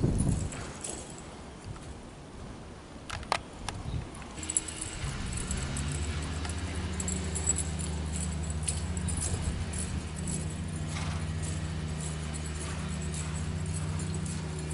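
Light metallic jingling of a riding horse's bridle and saddle tack. From about four seconds in, a steady low hum comes in and stays to the end.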